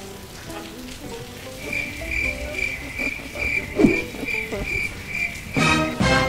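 A cricket chirping steadily, about two chirps a second, beginning a second and a half in, over faint low voices. Near the end a man lets out a loud open-mouthed cry.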